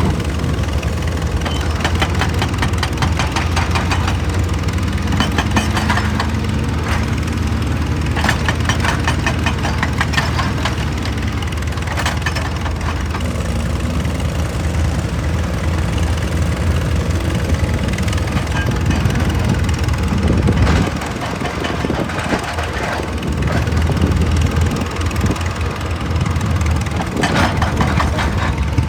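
Excavator's diesel engine running steadily, with clusters of knocks and scrapes at intervals as the machine works rock.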